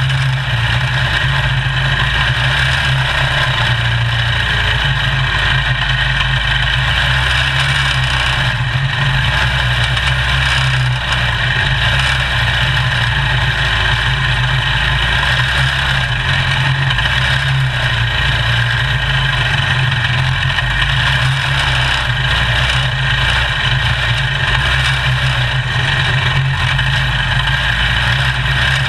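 Quarter midget race car's small single-cylinder engine running steadily, close to the microphone onboard the car, a constant drone with no big rises or falls in pitch.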